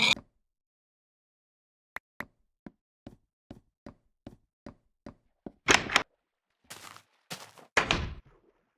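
A run of short, evenly spaced knocks, about two and a half a second, followed by a few louder, longer rough bursts near the end.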